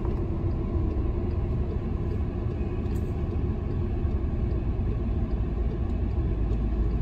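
Steady low rumble of a car driving in strong wind: road and wind noise.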